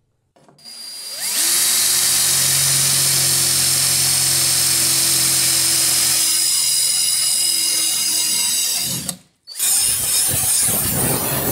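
An electric drill spins up and bores through mild steel flat bar, running steadily with a high whine for about eight seconds. After a brief break, an angle grinder's disc cuts into the steel bar.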